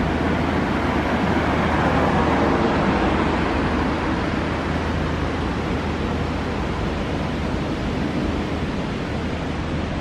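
A car passing on the street, its tyre and engine noise swelling over the first few seconds and then fading into a steady traffic hum.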